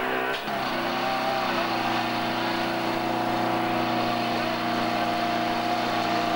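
Portable fire pump's engine running at a steady high speed while it pumps water through the hoses. There is a brief dip about half a second in, then it holds one even note.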